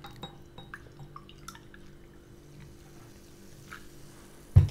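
Cola poured from a plastic bottle into a drinking glass: faint fizzing, crackling and dripping of the carbonated drink. A single short low thump near the end.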